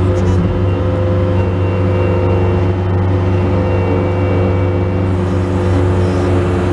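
Bobcat skid-steer loader's diesel engine running steadily while its bucket pushes snow, heard from inside the cab.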